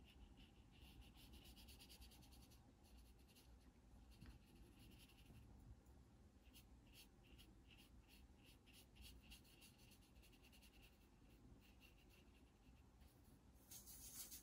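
Faint scratchy strokes of a watercolor paintbrush brushing paint across thick paper, in runs of short repeated strokes. A brief louder rustle comes just before the end.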